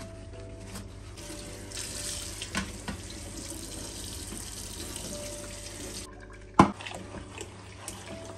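Kitchen tap running into a stainless steel sink, splashing over a glass fridge shelf as it is rinsed, starting about a second in. A single sharp knock comes near the end.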